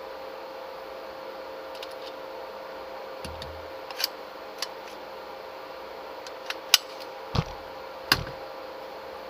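Half a dozen sharp clicks and clacks, scattered from about four seconds in to near the end, over a steady background hum.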